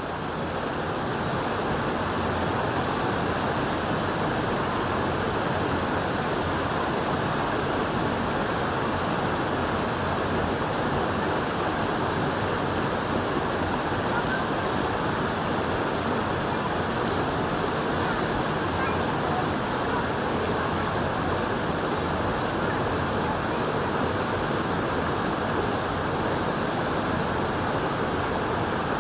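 Steady rushing of running water, an even unbroken noise.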